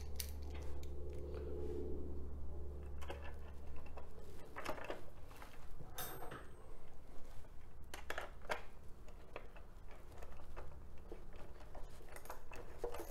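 Scattered metallic clicks and clinks of a 10 mm wrench working a small nut down onto a bolt on a plastic fairing part, over a steady low hum.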